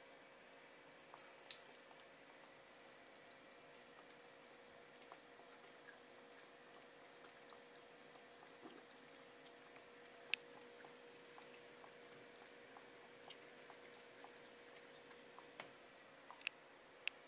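A thin trickle of water running from a bathroom sink faucet, a faint steady hiss, with scattered sharp drips and small clicks as a cat laps from the stream.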